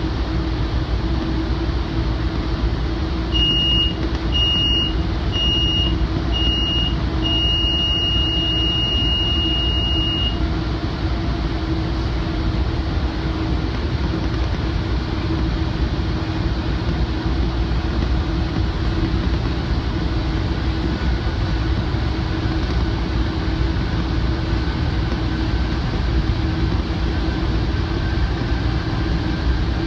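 Steady rumble of a moving commuter train, heard inside the Rotem cab car. Over it the cab's alerter, a high electronic tone, beeps four times and then sounds a continuous alarm for about three seconds before stopping.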